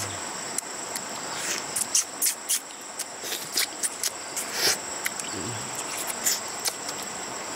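People eating fish with their fingers: quick wet chewing and lip-smacking clicks, over a steady high-pitched insect drone.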